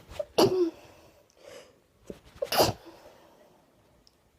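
A person sneezing twice, about two seconds apart, each sneeze led by a quick sharp intake of breath.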